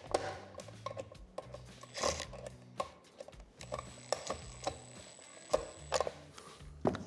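Irregular mechanical clicks and knocks of hand work on parts and cable, like ratcheting plastic and tools being handled, over background music with a low bass line.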